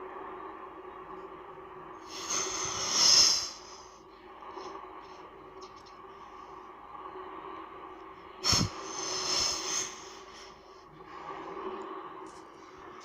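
Water sound effect: a steady wash of moving water with two louder splashing surges. The first builds over about two seconds, starting two seconds in. The second hits sharply just past halfway.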